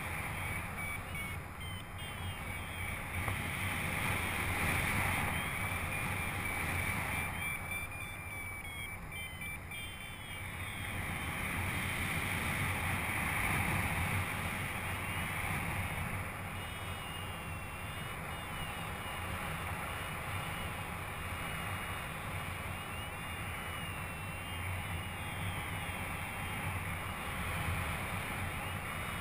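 Wind rushing over the microphone of a paraglider in flight, a steady roar that swells and eases a few times.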